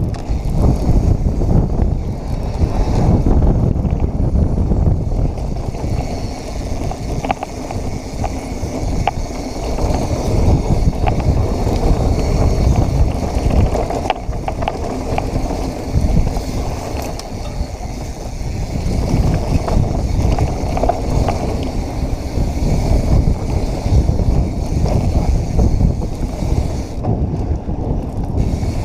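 Santa Cruz Hightower V2 mountain bike riding a dirt trail: a steady rush of wind on the microphone with tyre noise and scattered small clicks and rattles from the bike.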